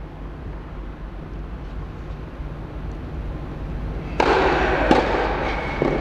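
Tennis serve and return on an indoor court: two sharp racket-on-ball hits about a second apart, near the end, over a steady low hum. A loud rushing noise starts suddenly just before the first hit.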